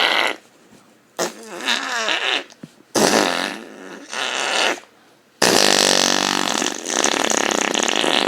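Imitation fart noises in three bursts: two short ones in the first half and a long, sustained one starting a little past halfway.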